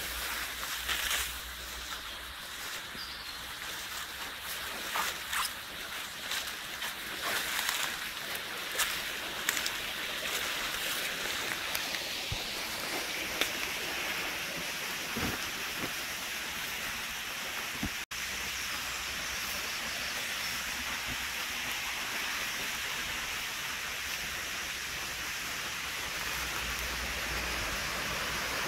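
Fern fronds and leaves rustling and brushing against the camera with many small clicks as it pushes through undergrowth; about two-thirds of the way through, an abrupt cut gives way to the steady rushing of a small stream.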